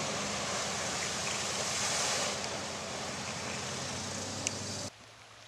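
SUV ploughing through deep floodwater: a dense rush of spraying, churning water and wind on the microphone, with a steady low engine hum underneath. Near the end it cuts off abruptly to a quieter rush of flowing water.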